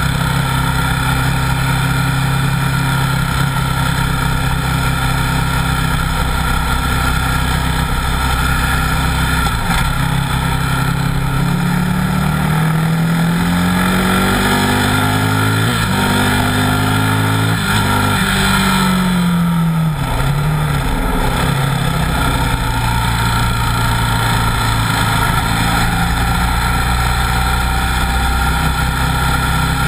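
Buell 1125R's V-twin engine under way at track speed, over a steady rush of wind noise. Its note holds steady at first, then rises again and again with drops between gear changes from about a third of the way in, falls away around two-thirds through as the bike slows, and builds steadily again near the end.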